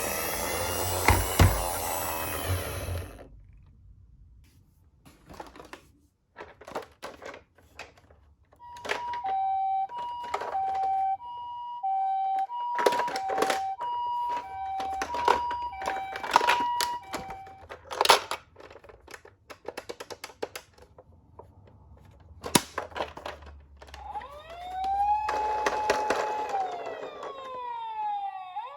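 Japanese-style two-tone ambulance siren ("pee-po") alternating high and low about once a second for roughly eight seconds, amid light clicks and knocks of the toy ambulance being handled. Near the end a wailing siren rises, holds and falls.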